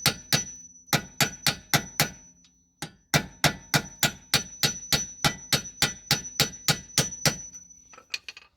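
Hammer striking a steel pin punch in quick, even blows, about four a second with a metallic ring, driving the brake pad retaining pin out through a rear brake caliper. Two short pauses break the hammering, which ends with a few light taps near the end.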